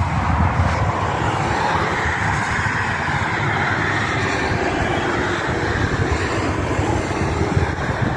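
Road traffic: the steady rushing tyre and engine noise of vehicles passing on a nearby highway, swelling a little in the middle and easing off near the end.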